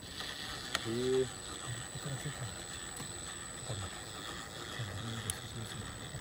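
Electric motor and geared transmission of an RC4WD Trail Finder 2 scale crawler whining steadily as it crawls over rock, with a couple of sharp clicks.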